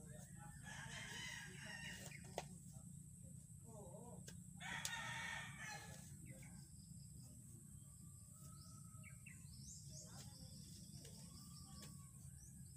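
A rooster crowing, loudest in one long call about five seconds in. A single sharp knock of the hoe striking the ground comes a couple of seconds earlier.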